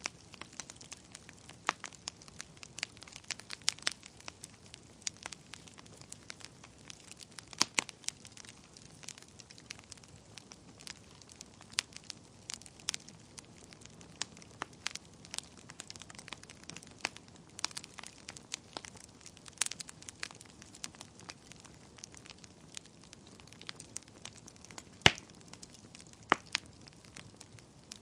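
Wood fire burning in a fireplace: irregular crackles and snaps over a faint low hiss, with a sharper pop now and then, the loudest about 25 seconds in.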